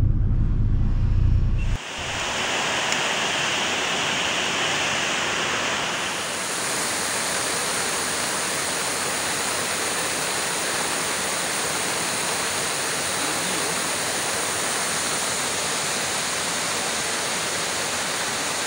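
Steady rush of water from heavy rain and floodwater pouring over a weir. A low boat-engine hum runs for the first couple of seconds and cuts off suddenly.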